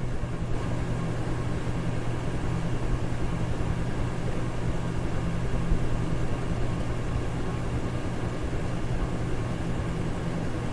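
Electric fan running steadily: an even rushing whoosh of air over a constant low hum.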